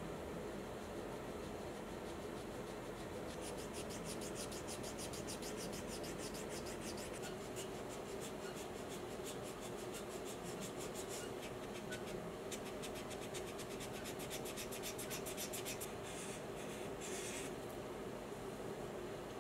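Hand sanding a resin faux-ivory revolver grip panel with a sanding block: quick, even scratching strokes that start about three seconds in, over a faint steady hum.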